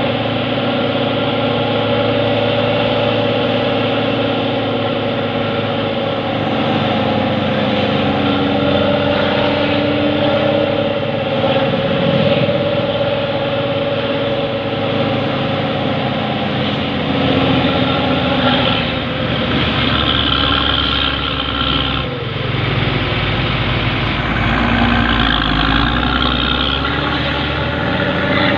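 Diesel engine of an intercity bus running under load on a climb, heard from close behind. Its pitch shifts several times, with a deeper low rumble in the second half.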